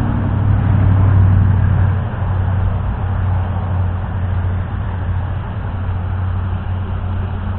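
Road traffic: a steady low rumble of passing vehicles, loudest about a second in.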